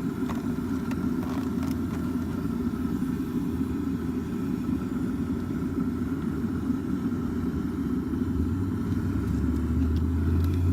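Steady low rumble of an idling vehicle engine, with a deeper hum swelling in near the end and a few faint clicks early on.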